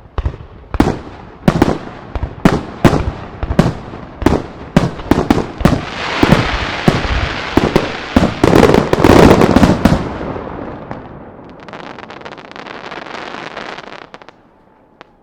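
Aerial firework shells, mostly round break shells, bursting in quick succession with echoing bangs. They build to a dense, loud volley about six to ten seconds in, then give way to a fainter crackling that dies out near the end.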